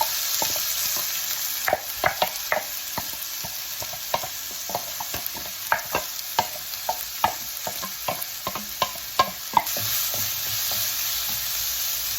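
Chopped onions sizzling in hot oil in a pan, stirred with a spoon that clicks and scrapes against the pan many times from about two seconds in. The stirring stops near the end and the sizzle goes on steadily.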